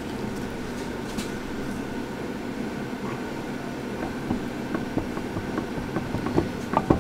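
Failed right-front wheel hub bearing of a 2005 Chevy Silverado 1500 making a steady rumbling noise. The bearing is pretty much completely broken, with so much play that the wheel can nearly be moved out of the hub.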